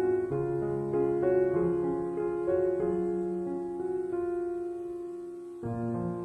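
Background piano music: a slow melody of held notes that dies away, with a new phrase starting abruptly near the end.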